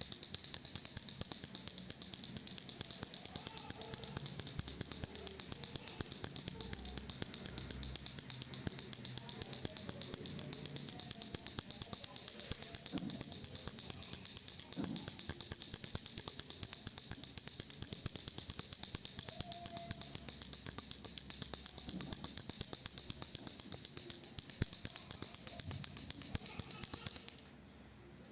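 Pooja hand bell (ghanti) rung rapidly and continuously: a steady high ringing kept going by fast clapper strikes. It cuts off suddenly near the end.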